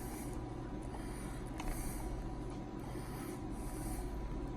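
Faint rubbing and scraping of a hex driver turning screws into an RC car's plastic differential case, with a small click about one and a half seconds in, over a steady low hum.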